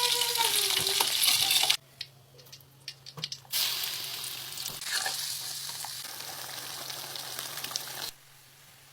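Hot oil sizzling as chicken and potatoes fry and are stirred for balado. The loud sizzle cuts off abruptly about two seconds in, then a quieter sizzle starts again and stops near the end.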